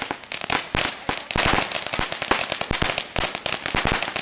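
A long string of firecrackers going off in a rapid, uneven rattle of pops, many a second without a break.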